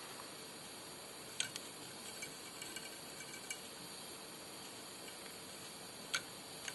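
A few small clicks of a steel fly hook being handled and set into the metal jaws of a fly-tying vise, over a low steady hiss.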